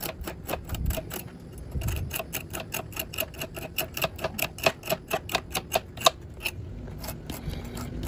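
A table fork raked through an evaporator coil's bent fins to straighten them, giving a quick run of sharp clicks, several a second, that thins out near the end.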